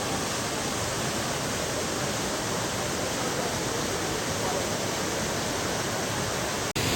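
Waterfall rushing: a steady, even wash of falling water, broken by a split-second dropout near the end.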